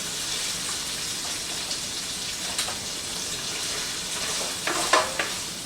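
Sesame soy beef sizzling steadily in a hot frying pan, with a few sharp clicks of a utensil against the pan near the end.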